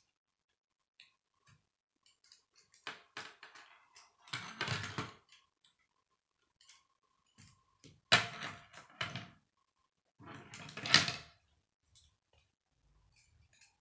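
Plastic K'nex pieces clicking and rattling as a model car is handled and snapped together, with knocks of plastic set down on a wooden tabletop. The sounds come in several bursts of a second or so; the sharpest knock is about eight seconds in.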